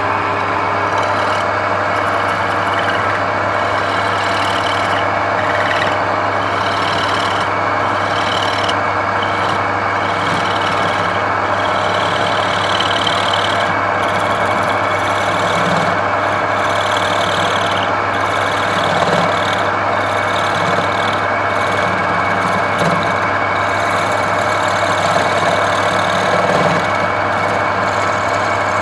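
Woodturning lathe motor running with a steady hum, while a turning tool cuts the spinning wood in short, repeated hissing passes.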